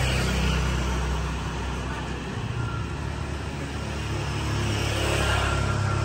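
Motorbikes passing along the street, their engines swelling and fading: one just at the start and another that grows louder and passes about five seconds in, over steady street traffic.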